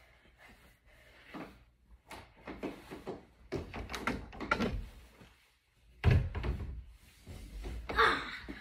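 Rustling and a series of knocks and thumps as a fitted sheet is pulled and tucked around a mattress, with a heavier thump about six seconds in.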